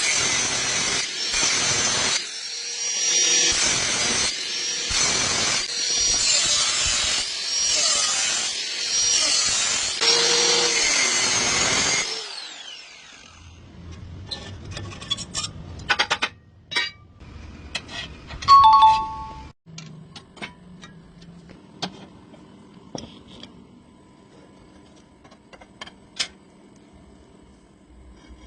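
A power tool running in a string of passes for about twelve seconds, with a high whine and short breaks every second or so. It then stops, leaving scattered clicks and knocks and one louder ringing clank.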